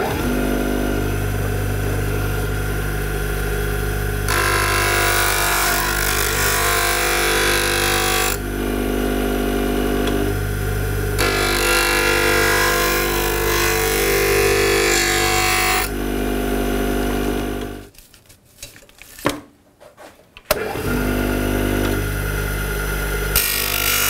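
Electric bench grinder running with a steady motor hum while a steel plane iron is held against the grinding wheel, adding a harsh grinding hiss that comes and goes in passes of a few seconds as the iron is moved back and forth across the wheel. About three quarters of the way through, the sound breaks off for a couple of seconds with a click and then resumes.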